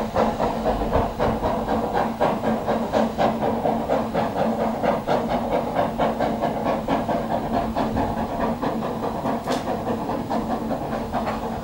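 Ffestiniog Railway narrow-gauge steam locomotive working a train away, its exhaust chuffing in a quick, even beat with steam hiss, growing a little fainter near the end.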